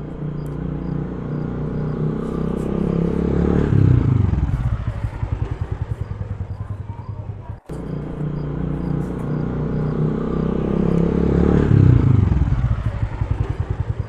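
Motorcycle engine revved up and dropping back to a pulsing idle, twice, with a sudden break about halfway through.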